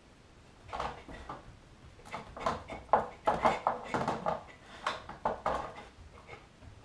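A dog nosing along a row of glass jars with metal lids, knocking and clinking them in a string of short, irregular taps that come thickest from about two seconds in.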